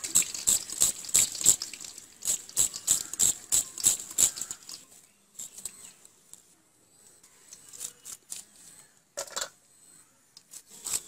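Onion being sliced by hand against a boti's fixed curved blade: a quick run of crisp cuts, about three a second, for the first four or five seconds, then only scattered cuts, with one louder, fuller rustle a little after nine seconds.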